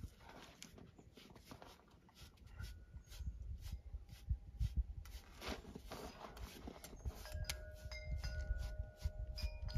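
A grooming tool scratches in repeated strokes through a dog's shedding coat over a low rumble. From about seven seconds in, a few clear chime tones ring and hold.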